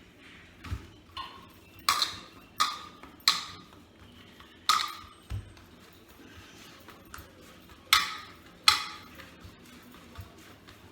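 Six sharp kitchen knocks, each with a brief ring, as the bowl and dough are handled for kneading.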